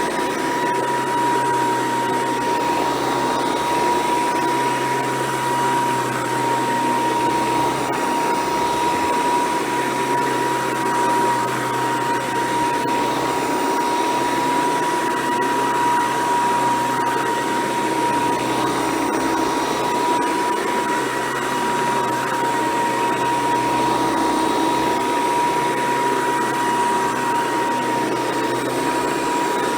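Hoover Decade 800 convertible upright vacuum cleaner running steadily, its motor giving a constant high whine over the rush of air.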